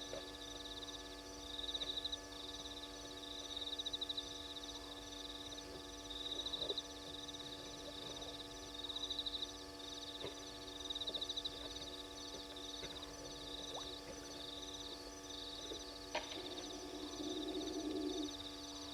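Night-time animal calls: a short, high pulsed trill repeating about every two seconds over a steady electrical hum, with a lower pulsed call near the end and a single click.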